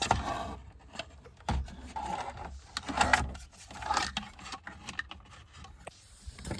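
Irregular clicking, knocking and rustling of plastic wiring connectors and cable loom being handled behind a van's dashboard stereo.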